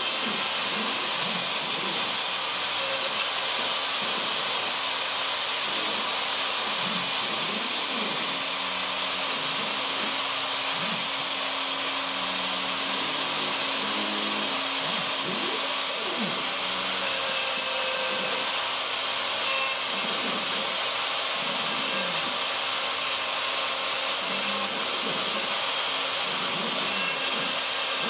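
Craftsman 12A 2 hp router on a CNC machine running steadily at high speed, its bit cutting into a cedar fence picket. Lower tones rise and fall underneath as the machine's axes move.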